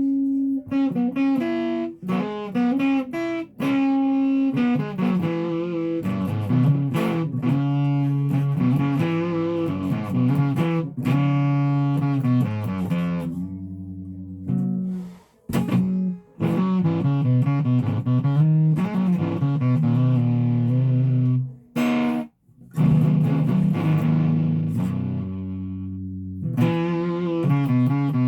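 A guitar playing runs of plucked notes and held chords, stopping briefly twice in the second half.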